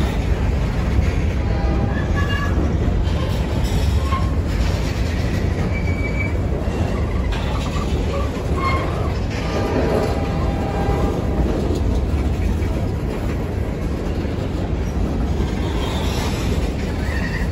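Freight train's covered hopper cars rolling past close by: a steady rumble of steel wheels on rail, with short high squeals from the wheels here and there.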